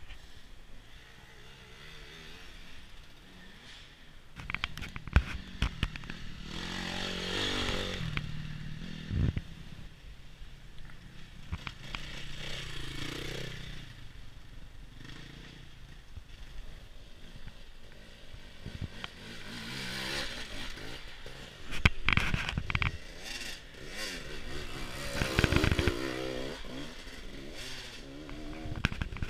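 Off-road enduro motorcycles riding a woodland trail, engines revving and fading as they come and go several times. Knocks and scraping close to the microphone run through it.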